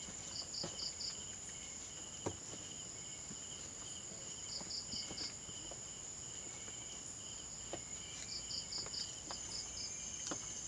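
Crickets and other night insects: a steady high-pitched trill, with quick groups of about four chirps every few seconds. A few faint knocks are also heard.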